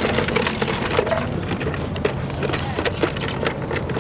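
Ostriches pecking at feed in a feeding container: a fast, irregular run of knocks and clatter, with a low steady rumble underneath.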